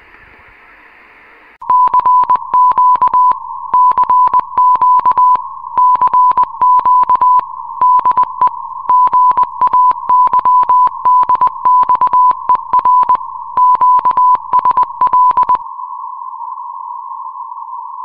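A steady hiss from a CB radio receiver on lower sideband cuts off about a second and a half in. A loud beep tone near 1 kHz follows, keyed on and off in short and long beeps like Morse code, each with a click, then holds as a quieter steady tone for the last couple of seconds.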